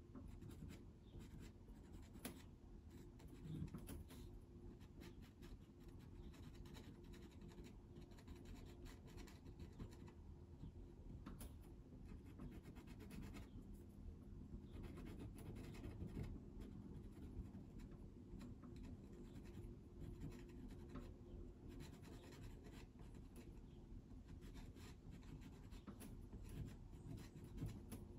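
Faint scratching of a white pastel pencil on sanded pastel paper, drawing small light circles in short, ticking strokes.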